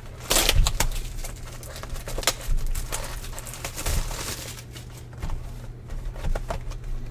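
Plastic wrap and cardboard crinkling and rustling as a sealed box of baseball cards is opened by hand, loudest in the first second, with irregular crackles throughout.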